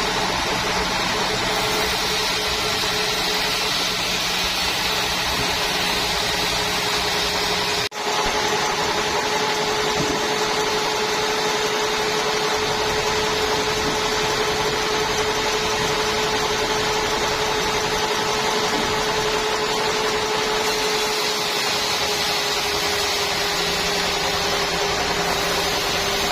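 Sawmill machinery running steadily, a continuous mechanical drone with a steady hum. It breaks off for an instant about eight seconds in and then carries on.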